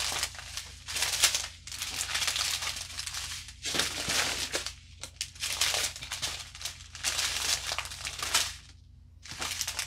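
Strips of thin plastic bags of diamond painting drills being handled and shuffled: crinkling of the plastic in repeated bursts with short pauses, briefly quieter about nine seconds in.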